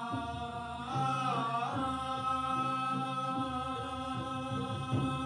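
Chant-like singing in long held notes, with a wavering bend in pitch about a second in, over a low pulsing musical accompaniment.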